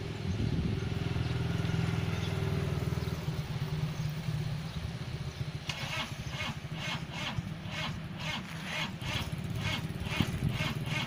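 Diesel train rumbling low and steady at the station. From a little past halfway, a regular rasping pulse of about two and a half beats a second joins it.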